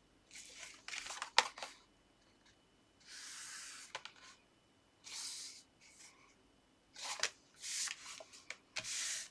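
Paper and card being handled: a few light taps and clicks, then several short rustling swishes of about half a second each as sheets slide against each other.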